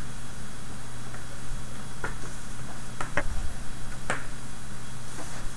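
Small plastic robot-kit parts clicking against each other and the tabletop as they are handled and set down: about five short, sharp clicks, two of them close together near the middle, over a steady low hum.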